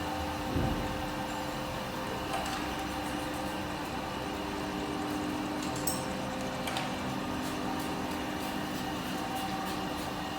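Jones Shipman 1311 universal cylindrical grinder running with a steady, even hum, with a low thump about half a second in and a few light clicks.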